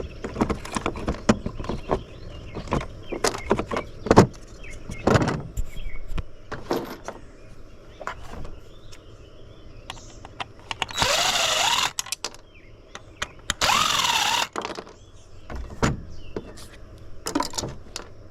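Clinks and knocks of metal parts being handled, broken twice by a power drill run for about a second each time, its whine dipping and rising in pitch.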